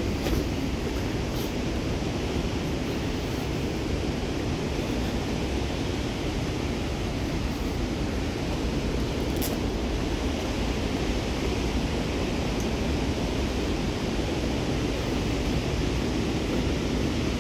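Steady rushing of the Merced River, a tumultuous mountain stream in full flow, with a few faint ticks.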